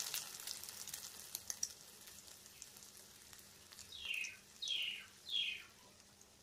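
Beaten egg frying in hot oil in a steel kadai, a sizzle with faint crackles that fades as the omelette sets. About four seconds in, three short high chirps, each falling in pitch, sound in quick succession.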